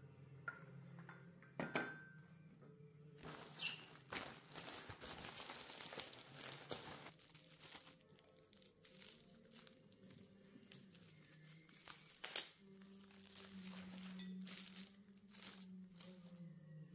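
Faint rustling and crinkling of packaging being handled, densest in a stretch a few seconds in, with a couple of sharp taps.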